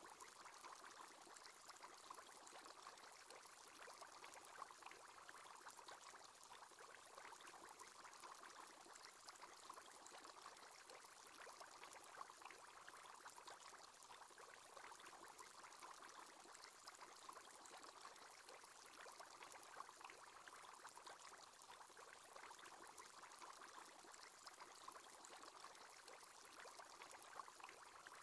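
Faint, steady bubbling of an aquarium air bubbler, the screensaver's bubble-column sound effect.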